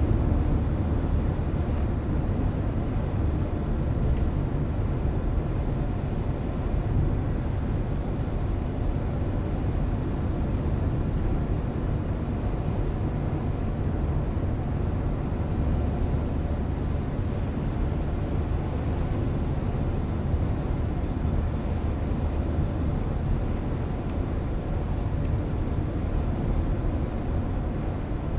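Car driving at steady speed, heard from inside the cabin: a constant low rumble of tyres on the road and the engine, with faint scattered ticks now and then.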